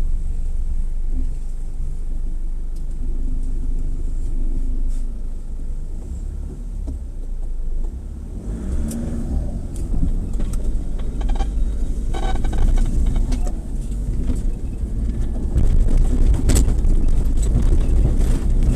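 Off-road 4x4 vehicle driving, with a steady low engine and drivetrain rumble. From about halfway, knocks and rattles become frequent and the sound grows louder.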